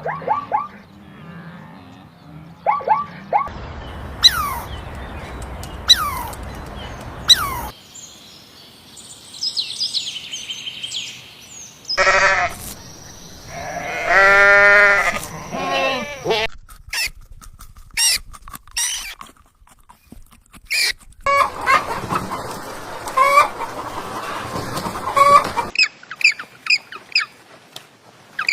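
A run of short clips of different animal calls, each cut off abruptly. The loudest is a long, pulsing call a little past halfway.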